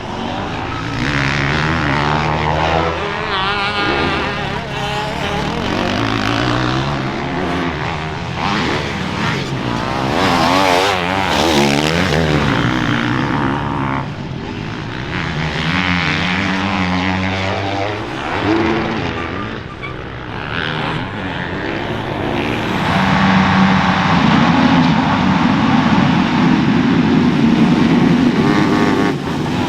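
Motocross racing engines revving hard and easing off as several machines pass, their pitches rising and falling and overlapping. The sound grows loudest and steadiest in the last quarter.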